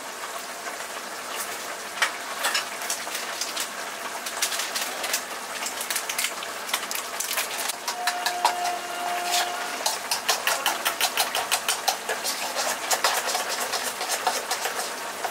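A metal spoon stirring curd and spice powders in a steel bowl, scraping and clinking against the sides in quick repeated clicks. The clicks come faster and more steadily over the last few seconds.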